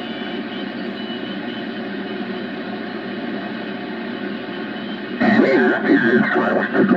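Grundig Satellit 750 shortwave receiver's speaker hissing with band noise while tuned to the 20-meter band on single sideband. About five seconds in it suddenly gets louder as a garbled single-sideband voice comes through.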